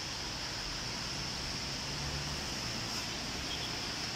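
Steady outdoor noise with no distinct events, and a low rumble swelling briefly about two seconds in.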